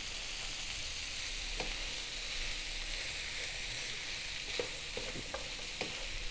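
Chicken, shrimp and mushrooms sizzling steadily as they are sautéed in a frying pan, stirred with a wooden spatula that knocks against the pan once about a second and a half in and several times near the end.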